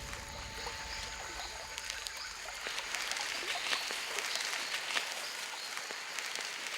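Rainforest ambience: a steady high hiss with faint scattered chirps and ticks, typical of insects and birds in the forest.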